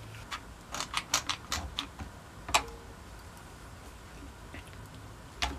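Harbor Freight plastic one-handed bar clamps being ratcheted tight on a glue-up: a quick run of sharp clicks, then two single clicks, one about halfway through and one near the end.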